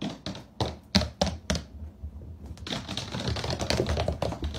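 A puppy's claws clicking on a hardwood floor: a few separate clicks in the first second and a half as it steps, then a quick, dense run of clicks from about two and a half seconds in as it runs up close.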